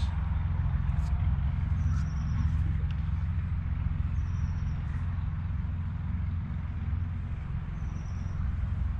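Steady low rumble in the background, with three short, faint high chirps and a few light clicks on top.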